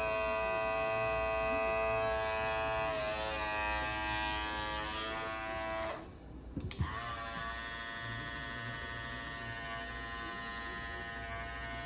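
Chrome cordless Andis Master hair clipper running with a steady buzz, the clipper called "loud, way too loud". It stops about six seconds in, and after a click a second Andis Master clipper, the copper limited edition, runs with a noticeably quieter buzz.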